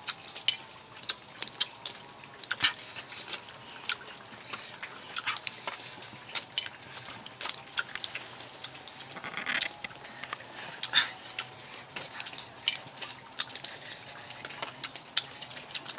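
Close eating sounds: irregular small clicks, crackles and smacks of someone chewing and picking at cooked snake and snake egg by hand from a bowl.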